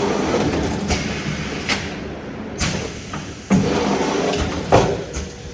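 Semi-automatic cup sealing machine at work: a steady mechanical noise with a series of sharp clacks and thuds at irregular intervals, the loudest about three and a half and nearly five seconds in.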